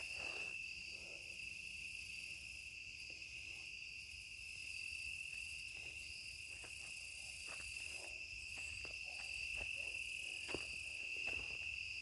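Crickets trilling steadily in one unbroken high tone, with faint scattered ticks and rustles.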